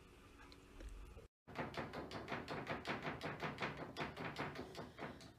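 A cat batting rapidly at a wall mirror with its front paws: a quick, even run of light taps on the glass, about five a second, starting about a second and a half in.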